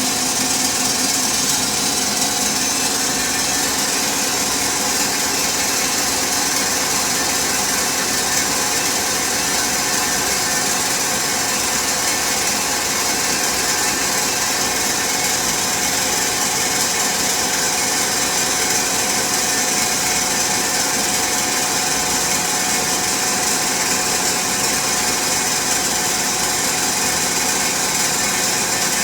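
Aronson GE500 welding positioner's electric power drive running steadily, turning or tilting the table: an even mechanical hiss with several steady tones and no change in speed.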